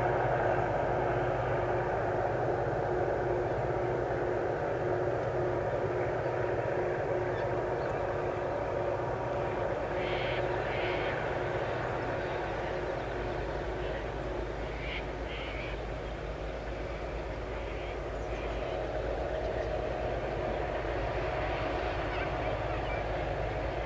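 Diesel-electric locomotives of a loaded grain train working hard up a grade, heard as a steady distant engine drone. A few short higher-pitched sounds come about ten and fifteen seconds in.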